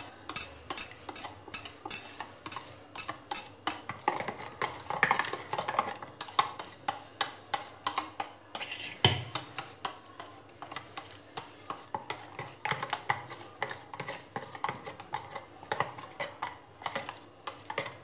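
A spoon stirring thin raw-mango pulp and water in a stainless-steel mixer jar, clinking against the metal sides again and again in a quick, uneven rhythm.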